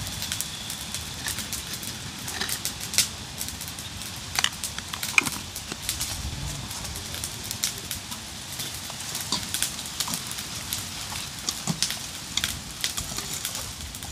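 Irregular sharp pops and crackles over a faint steady hiss, from food cooking over a fire.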